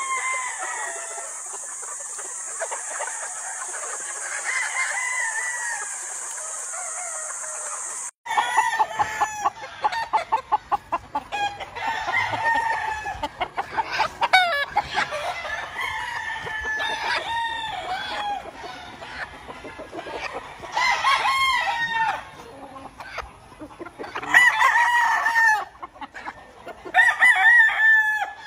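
Several gamefowl roosters crowing from the pens, overlapping one another, with clucking in between. The crowing grows louder and denser after about eight seconds.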